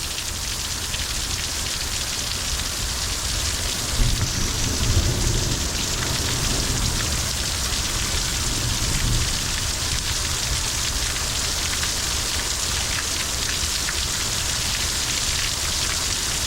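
Heavy rain pouring steadily in a thunderstorm. About four seconds in, a low rumble of thunder starts and rolls on for several seconds.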